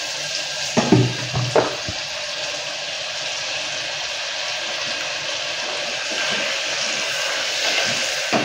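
Butter and a little oil sizzling steadily as they heat in the bottom of an open pressure cooker, with a few short knocks about a second in.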